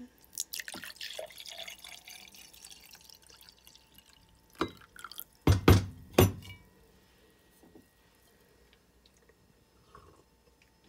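Lemonade poured from a pitcher into a drinking glass, a splashing stream for about three seconds. A few sharp knocks follow a second or two later; they are the loudest sounds.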